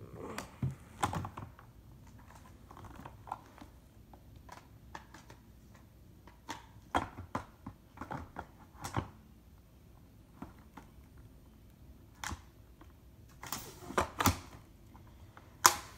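Irregular light clicks and knocks of things being handled, with a few louder knocks near the end.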